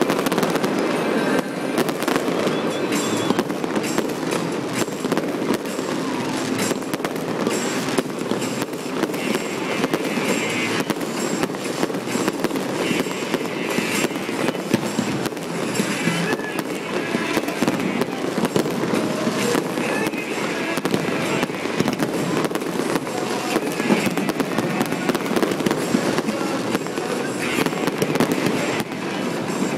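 Fireworks display: a continuous barrage of shell bursts and crackling effects, the bangs coming thick and fast with no let-up.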